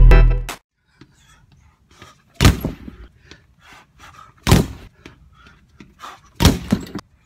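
Gloved punches landing on a punching bag: three heavy thuds about two seconds apart, the last followed quickly by a lighter second hit. Electronic music cuts off about half a second in.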